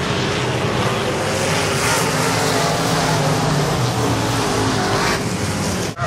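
A field of dirt-track modified race cars' V8 engines running hard together as the pack goes around the dirt oval. The sound drops briefly just before the end.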